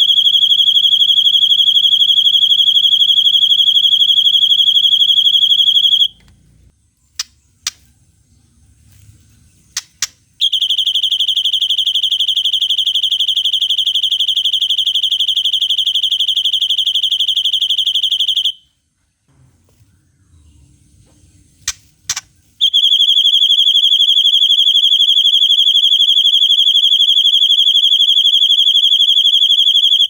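White-rumped shama (murai batu) singing its long 'cililin' imitation: a very fast, high-pitched trill held at one pitch, given three times for six to eight seconds each. In the gaps between trills come a few short, sharp notes.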